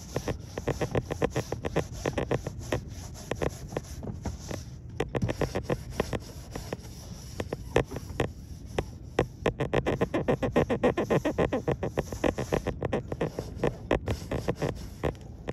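Quick repeated scraping and scrubbing strokes on a dinghy's hull, several a second with short pauses, as leftover barnacles and growth are cleaned off.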